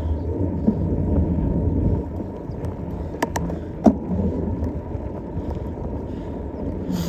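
Steady low rumble of a mountain bike rolling along, with wind buffeting the microphone. Three sharp clicks come a little past the middle.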